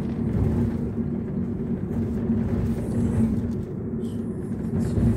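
Car cabin noise while riding as a passenger: a steady low rumble of engine and road, with a steady hum.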